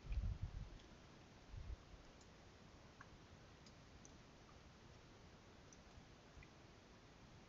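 Near silence: a faint steady hiss with a couple of dull low thumps in the first two seconds and a few faint scattered ticks.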